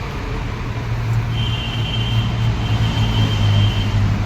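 An engine running with a steady low hum, swelling slightly partway through, with a thin steady high whine joining about a second and a half in and stopping just before the end.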